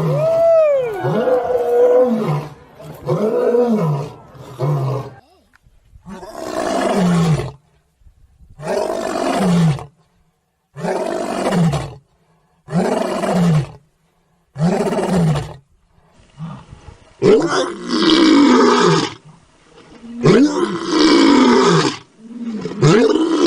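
Lion roaring: a bout that opens with long, deep calls and tails off into a series of short grunts about two seconds apart. After a short gap, a new bout of longer, louder roars begins.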